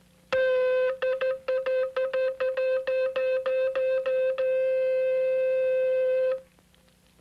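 A hand-held horn blown on one note: a quick run of short repeated blasts, about four a second, then one long held blast of about two seconds that cuts off.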